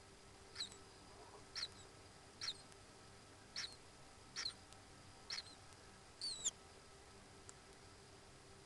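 Common kingfisher giving a series of seven short, shrill high calls, about one a second, the last one longer and falling in pitch, over a faint steady hum.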